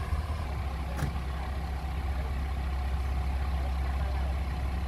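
Komatsu mini bulldozer's diesel engine running steadily at low revs, with a single brief click about a second in.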